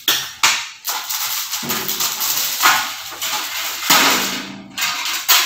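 Plastic packaging rustling and crinkling as it is handled, in a run of loud scrunches with several sharp starts.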